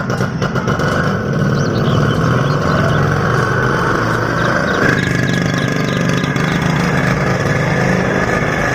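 Small engine of a bajaj auto-rickshaw running steadily at idle, with a change in its note about five seconds in.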